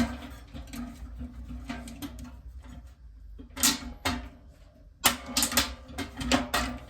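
Hand tin snips cutting sheet metal in short half-snips, a series of crisp clicking crunches that comes thickest in the second half.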